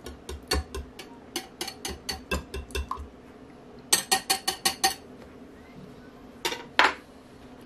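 Wire whisk clinking against a glass bowl as it beats a thin batter, quick strokes at about four or five a second in two spells. Two louder knocks near the end.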